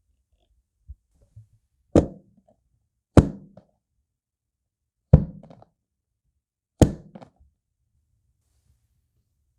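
Four hard knocks on a hard kitchen surface, each followed by a brief rattle, with a faint tap just before the first.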